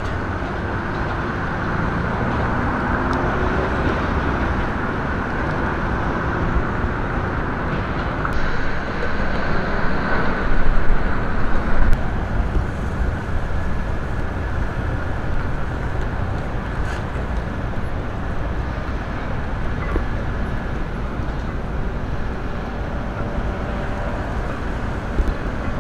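Steady road and engine noise of a car being driven, a little louder about ten to twelve seconds in.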